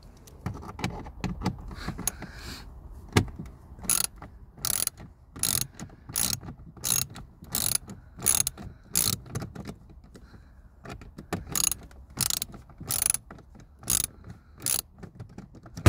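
Hand ratchet with a T10 Torx bit clicking in short bursts as it is swung back and forth, undoing a glove box screw. The bursts come about every three quarters of a second from about four seconds in, with a brief pause midway.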